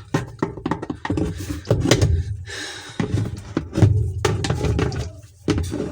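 Metal tool clicking, knocking and scraping against a rusted screw on a washing machine, a quick irregular string of sharp clicks as the screw refuses to turn.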